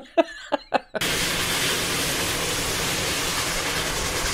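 Cab sound of Reading & Northern 2102, a 4-8-4 steam locomotive, working hard at speed. A steady, dense rush of noise starts about a second in.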